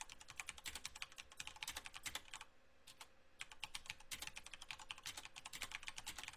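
Typing on a computer keyboard: a quick run of key clicks, with a short pause a little before halfway.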